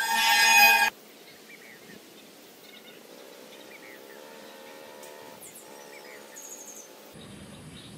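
Music ends on a loud held note about a second in. After that, faint bird chirps and short calls sound over a quiet outdoor background.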